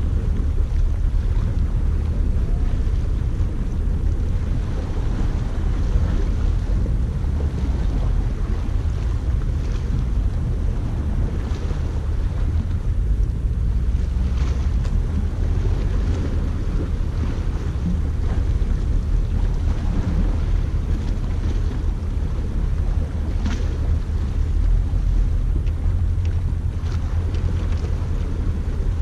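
Wind buffeting the microphone as a steady low rumble, with sea waves washing underneath.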